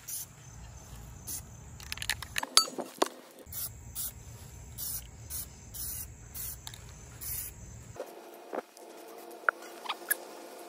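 Aerosol spray-paint can hissing in short bursts, about one to two a second, as paint is sprayed onto a wheel. The bursts stop near the end, and a few sharp ticks follow.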